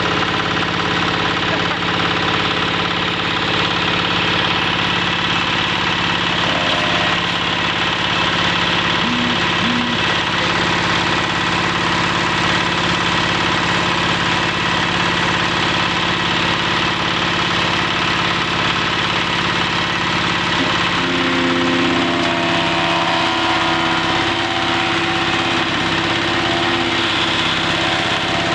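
Wood chipper engine running steadily, with a slight shift in its tone about two-thirds of the way through.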